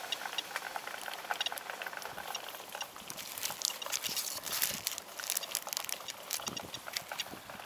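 Rain pattering on wet grass and on a plastic bag, an irregular spatter of small ticks over a steady hiss, with the bag crinkling as the Geiger counter inside it is picked up about halfway through.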